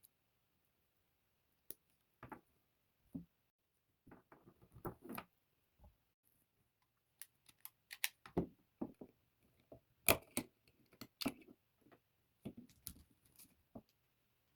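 Irregular clicks, taps and rustles of packaging and parts being handled during an unboxing, with a few sharper knocks about eight and ten seconds in.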